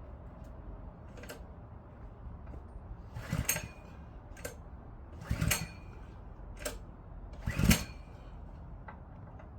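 About six separate knocks and clatters at uneven intervals, the loudest about three-quarters of the way through, over a faint low hum.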